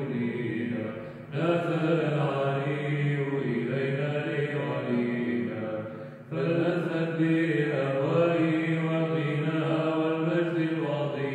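Byzantine Orthodox chant sung by voice in long melodic phrases, broken by short breaths about a second in and again about six seconds in.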